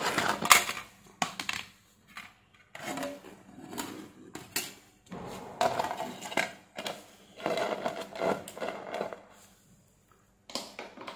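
Plastic housing and diffuser dome of an LED ceiling light being handled and set down on a bench: irregular knocks, clicks and rubbing of hard plastic.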